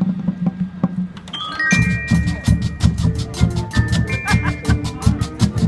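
High school marching band playing its field show. A held low note with scattered drum hits gives way, about a second and a half in, to the full band entering with a steady, fast drum beat, mallet percussion and held high melody notes.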